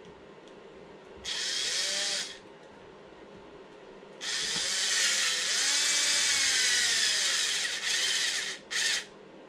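Small cordless impact driver spinning screws into an RC car chassis's motor mount: a short run about a second in, a longer run of about four seconds, and a brief blip near the end, its motor pitch rising and falling.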